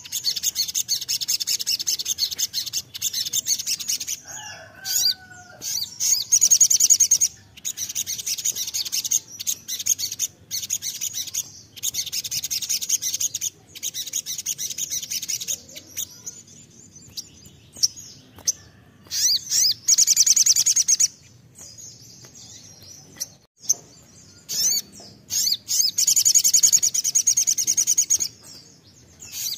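Caged male sunbird ('sogon') singing a fast, high-pitched chattering trill in long bursts of several seconds, broken by brief pauses.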